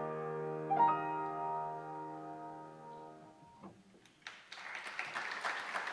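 Solo grand piano closing a piece: a final chord struck about a second in rings out and fades away over about two and a half seconds. After a brief hush, an audience starts applauding about four seconds in.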